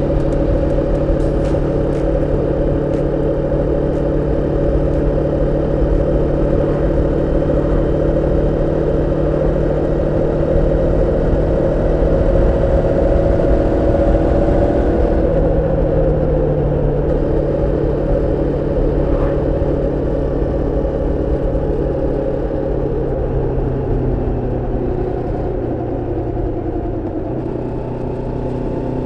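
Moto Morini X-Cape 649's parallel-twin engine running under way at moderate revs during break-in, its pitch creeping up until about halfway, then easing down gradually as the bike slows.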